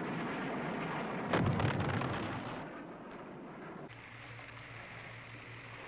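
A steady, noisy rumble, then a sudden louder blast about a second in that dies away over a second or so, like a distant explosion, leaving a quieter low rumble.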